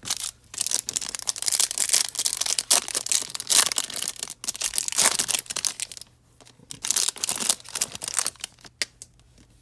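Foil trading-card pack wrapper being torn open and crinkled by hand, a dense crackle for about six seconds, a short pause, then more crinkling bursts.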